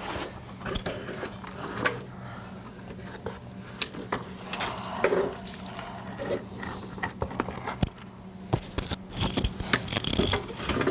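Irregular clanks, knocks and scrapes from a push mower being tipped up and handled over an oil drain pan, with a steady low hum underneath.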